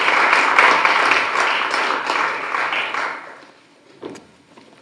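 Audience applauding, a dense patter of many hands clapping that dies away a little after three seconds in. A faint knock follows about four seconds in.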